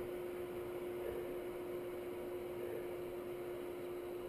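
Kawasaki KLR650 engine idling: a steady, even hum with one constant tone.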